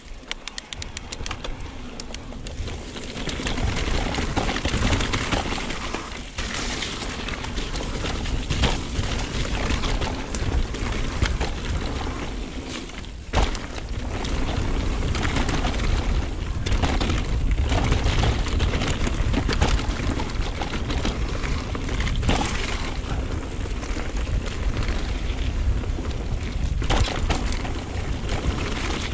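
Mountain bike descending a dirt and gravel trail, heard through a helmet-mounted action camera: tyres rolling over the dirt and the bike knocking and rattling over bumps, with wind rushing across the microphone as a heavy rumble. It gets louder over the first few seconds as the bike picks up speed.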